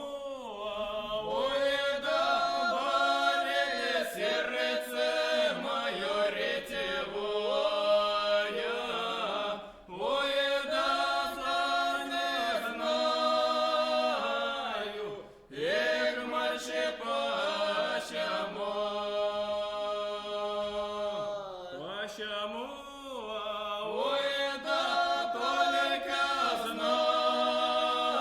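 A vocal trio singing a Russian lyrical folk song of the Kursk region, unaccompanied and in several parts. The long notes are drawn out and slide between pitches, with short breath pauses about ten and fifteen seconds in.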